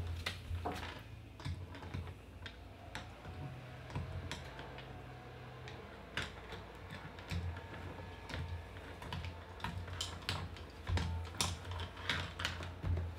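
Chocolate Labrador puppy's claws and two plastic makeup pencils clicking and tapping irregularly on a hardwood floor as the puppy noses and mouths the pencils, over a low steady hum.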